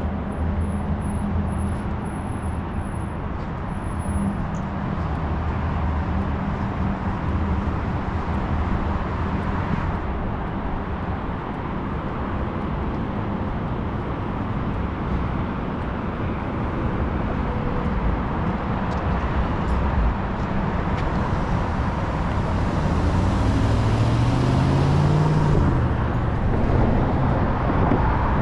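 Downtown street traffic: a steady wash of car engines and tyre noise. About three-quarters of the way in, one vehicle's engine rises in pitch as it accelerates past, with a swell of tyre hiss.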